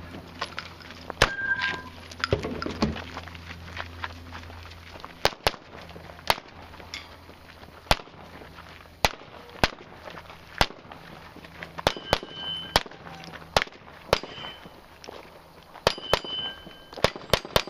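Gunshots fired singly at an uneven pace, about fifteen of them, in a 3-gun stage. Several are followed by a brief metallic ring: steel targets being hit.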